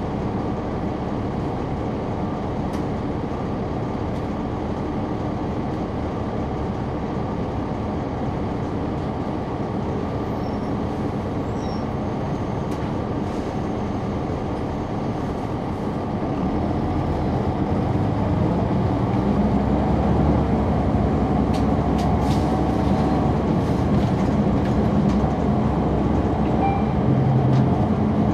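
Caterpillar C9 ACERT diesel engine of a 2004 Neoplan AN459 articulated bus, heard on board from a rear seat. The engine runs with a steady drone that grows louder and heavier about 16 seconds in. A few light clicks and rattles come through in the second half.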